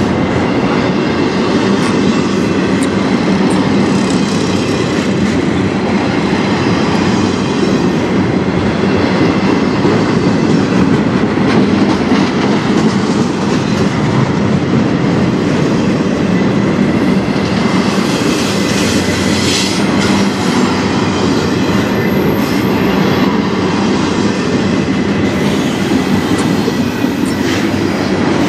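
Double-stack intermodal freight cars rolling past close by: a steady, loud rumble and rattle of steel wheels on the rails, with clicks and clatter from the wheels and couplings.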